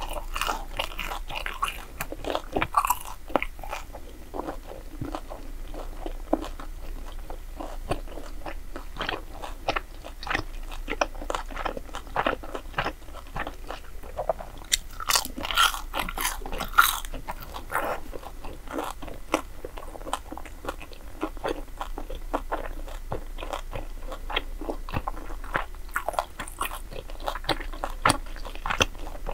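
Close-up eating sounds: a person biting and chewing crisp fried dessert, a steady run of small crunches and wet chewing clicks, with louder crunches a little past the middle.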